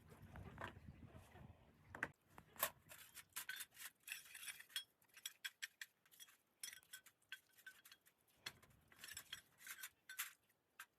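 Small metal parts clinking and tapping against each other in quick irregular bursts of sharp clicks, some with a short metallic ring, with a little rubbing and scraping.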